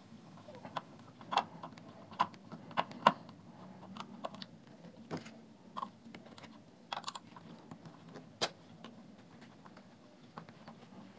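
Small screwdriver clicking and scraping in the screws of a portable speaker's circuit board as they are backed out, with the plastic housing tapping in the hand: light, irregular clicks, a few sharper ones about three seconds in and again past the middle.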